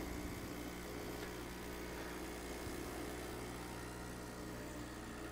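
Bezzera espresso machine's pump running steadily while pulling a shot, a low even hum.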